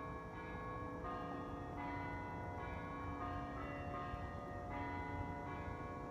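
Church bells ringing in a steady sequence, a new bell note struck about every three-quarters of a second and each ringing on into the next, over a low rumble.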